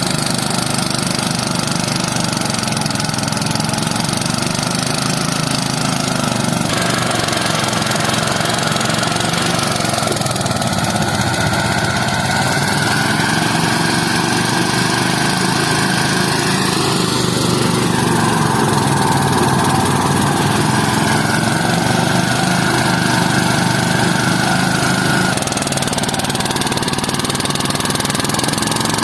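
A small engine running steadily for the whole stretch, its note rising and dipping slowly as the load changes, typical of a harvest machine at work.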